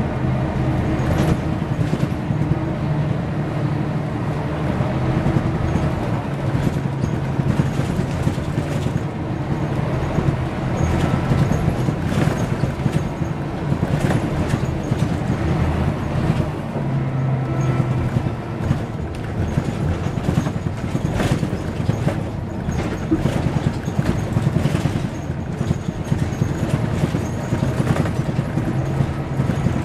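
Mercedes-Benz O405 N² city bus heard from inside the passenger cabin on the move: the engine's low drone swells and eases in stretches as the bus pulls and coasts, over steady road noise and scattered short rattles from the interior.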